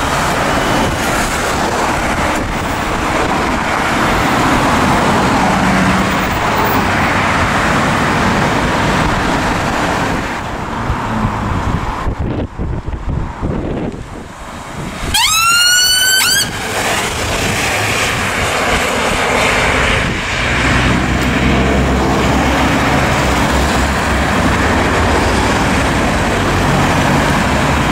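Road traffic noise from passing vehicles. About halfway through, an ambulance siren gives one short rising sweep as the Fiat Ducato ambulance responds through the junction, and a vehicle engine is heard running under the traffic near the end.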